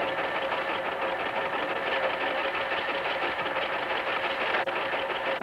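Engine-driven machinery running steadily, with a fast, even clatter over a steady hum.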